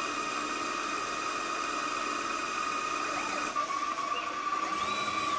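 DIY CNC lathe turning a metal test part under flood coolant: the spindle runs with a steady whine over the hiss of the coolant and cutting. The whine's pitch shifts slightly about three and a half seconds in.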